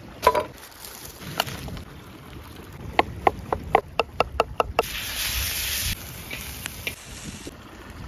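Chef's knife slicing mushrooms on a wooden cutting board: a fast run of about nine sharp chops in under two seconds, after a couple of single knocks. About a second of hissing noise follows.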